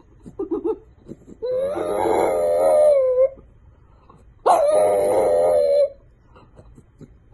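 French bulldog howling: two long, slightly wavering howls, the first about a second and a half in and the second about four and a half seconds in, with a few brief faint sounds before them.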